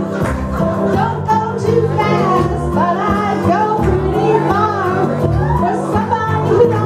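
A woman singing karaoke over a recorded backing track. Her sung lines rise and fall above a steady bass, and grow stronger about two seconds in.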